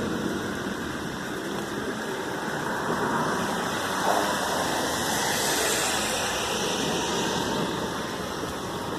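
Heavy rain pouring steadily in a thunderstorm, growing louder through the middle.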